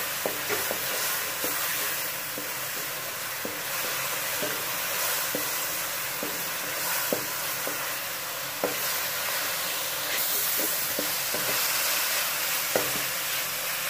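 Onion, tomato and spice masala sizzling in oil in a metal karahi while a wooden spatula stirs and scrapes it, with scattered light clicks of the spatula against the pan.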